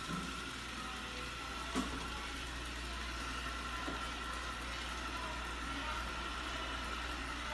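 Robot vacuum running with a steady whirring hiss and a steady high whine, with a single light click about two seconds in.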